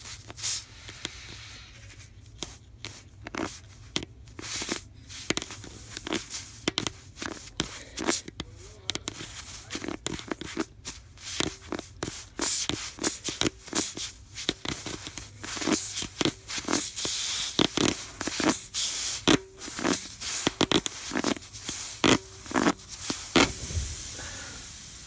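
Rasping tool from a tubeless tyre plug kit being worked in and out of a puncture in a motorcycle tyre, a long run of irregular scraping strokes as it reams out the hole for the plug.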